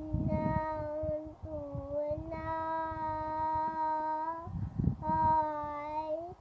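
Young girl singing on her own in a few long phrases, holding the notes steadily, the longest for about two seconds. Low rumbling noises come in twice, near the start and about three-quarters of the way through.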